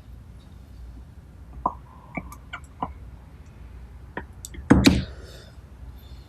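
Light clicks and knocks of the pneumatic air cylinder and its bracket being handled and lined up for assembly, with a louder knock about five seconds in.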